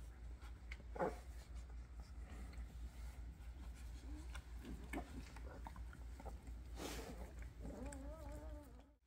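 Newborn Doberman puppies whimpering: a few short squeaks, then a longer wavering whine near the end. A steady low hum runs underneath.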